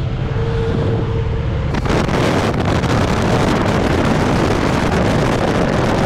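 Motorcycle engine running under heavy wind noise on the microphone while riding, the wind rush growing louder about two seconds in as the bike gets up to speed.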